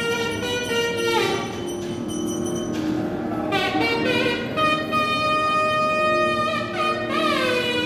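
Nadaswaram playing a melody of long held notes with sliding, bending ornaments.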